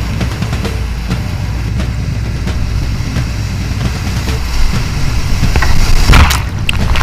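Loud, steady rush of whitewater rapids, with a deep rumble on the camera microphone. A louder splash comes about six seconds in.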